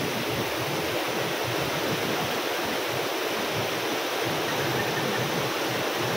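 Waterfall rushing steadily, a constant even noise of falling water.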